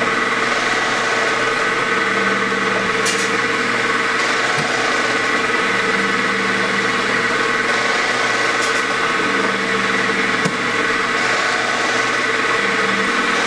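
Automatic fish cake machine running with a steady motor hum, over the continuous hiss of fish cake patties frying in the oil bath. A few faint clicks now and then.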